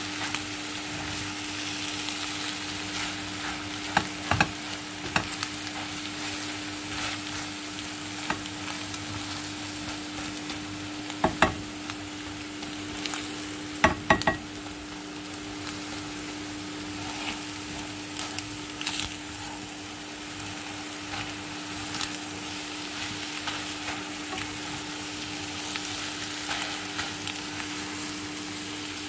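Shrimp and scrambled egg sizzling in oil in a frying pan while a slotted spatula stirs them, with a few sharp taps and scrapes of the spatula against the pan. A steady low hum runs underneath.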